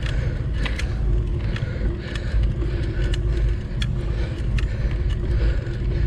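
Bicycle being pedalled hard uphill with the gearing at its limit: a steady low rumble of wind and tyres, with short clicks about once a second.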